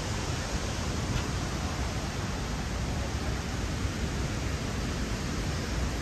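Steady rush of a waterfall: a dense, even wash of noise with no breaks.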